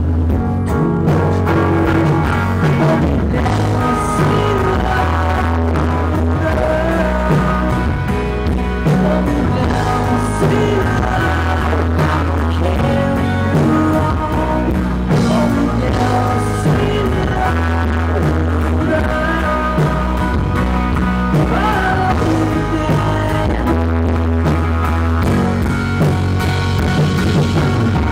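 Rock band playing live through a PA: a male lead singer over electric guitar, bass and drum kit.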